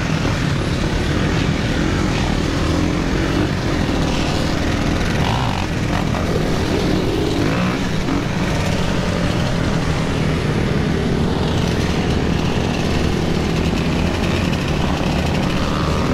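Dirt bike and quad ATV engines running and revving in a group, with the filming rider's own dirt bike engine loud and steady underneath.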